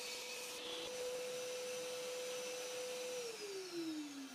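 Table saw and its connected dust extractor running with no load, a steady whine, then switched off about three seconds in, the pitch falling as they wind down.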